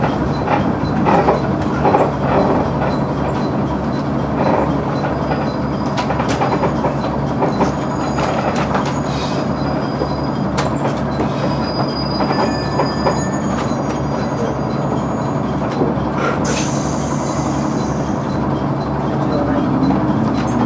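KiHa 100 diesel railcar braking into a station and stopping, with its engine running steadily underneath. A faint high brake squeal comes midway, and a short hiss follows as the train halts.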